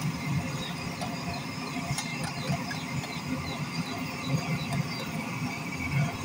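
Busy street ambience: a steady rumble of traffic with scattered small clicks and squeaks.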